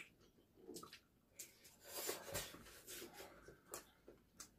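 Quiet eating sounds: faint small clicks and rustling from food being handled and chewed, with a longer rustle about two seconds in.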